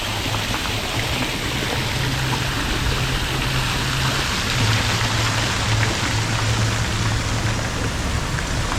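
Steady rush of running, splashing water, as from a fountain or water feature, with a faint low hum underneath.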